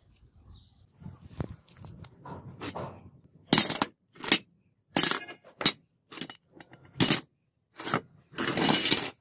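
Pieces of rusty scrap steel clanking and clinking as they are handled and shifted in a scrap pile: soft rattling at first, then a string of sharp clanks about one every half second to second.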